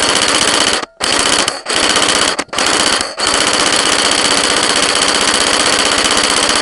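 Tokyo Marui G3 airsoft electric gun firing full auto, its gearbox clattering loud and close to the camera mounted on it: four short bursts, then one long unbroken burst from about three seconds in.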